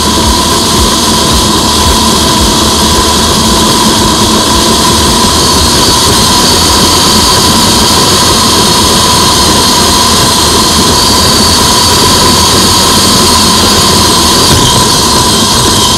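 Kyosho Blizzard RC snowcat's electric drive running steadily, a continuous loud whine from the motor and gears mixed with track clatter.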